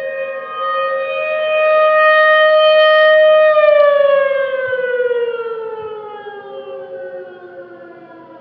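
Outdoor warning siren sounding a steady two-note chord that swells louder, then about three and a half seconds in its pitch slides steadily down as it fades.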